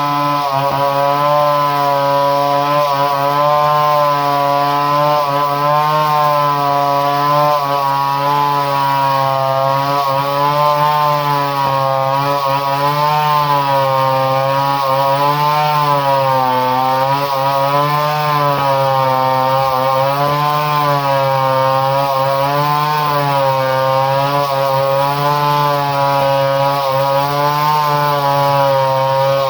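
Two-stroke chainsaw engine running steadily at high speed, its pitch wavering slightly up and down every couple of seconds.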